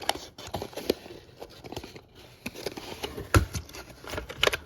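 Handling noise from packaged die-cast toy cars being sorted: irregular clicks, knocks and rustles of plastic blister cards and cardboard, with a louder knock about three and a half seconds in.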